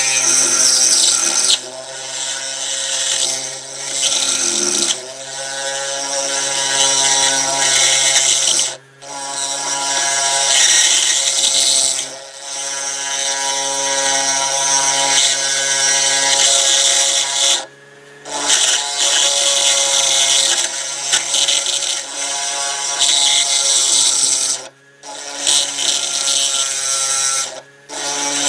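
Small handheld rotary grinder with a pink grinding stone running at high speed, grinding a screw hole a little larger. A steady motor whine with grinding hiss, which stops briefly about five times.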